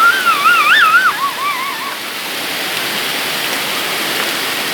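Heavy rain and fast-running floodwater making a steady rushing noise. For about the first two seconds a high, wavering pitched sound rises over it, then it fades.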